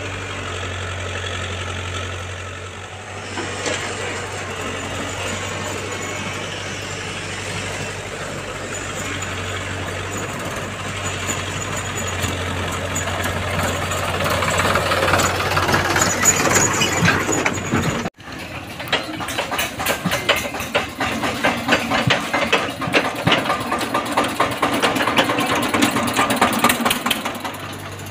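Diesel farm tractor engine running as the tractor drives up and passes close, growing louder. After a cut about 18 seconds in, a second diesel tractor, an Eicher pulling a loaded trolley, runs with a rapid, even clatter.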